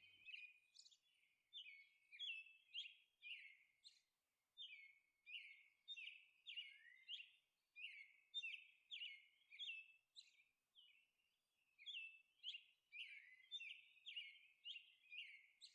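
Faint bird chirping: short, quick chirps repeated a couple of times a second, thin and high with no low sound under them.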